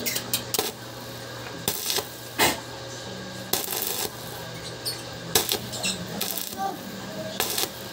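Stick welding arc on a steel wire grill: short bursts of crackling and sizzling as the arc is struck and held for a moment, several times, over a steady low hum.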